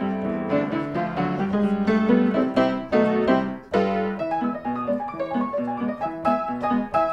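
Background piano music playing a light melody, with notes struck several times a second.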